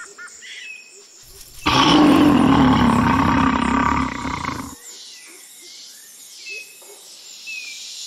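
A loud, deep animal roar lasting about three seconds, starting nearly two seconds in, with faint short chirps before and after it.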